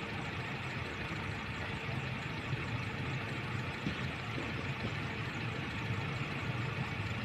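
A steady low mechanical hum, like an engine idling.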